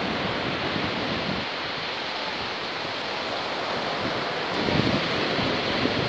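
Sea surf breaking steadily on a sandy beach, with wind gusting on the microphone.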